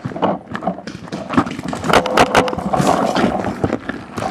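Hurried footsteps crunching on gravel, with irregular sharp knocks and scraping throughout.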